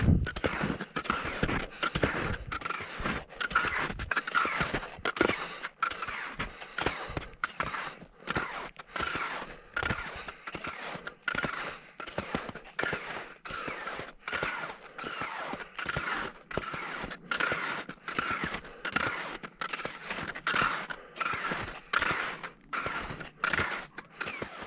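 A ski tourer's steady climbing steps, about two a second, each a short scrape.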